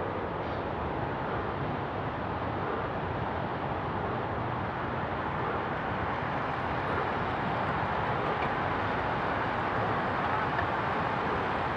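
Steady rush of wind and tyre noise from a road bike riding at about 22 mph, heard through a camera mounted on the bike; it grows slightly louder toward the end.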